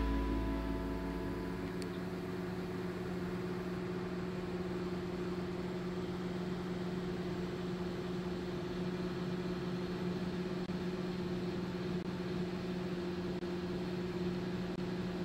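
The last of a rock song fading out in the first second or so, then a steady mechanical hum with a faint hiss.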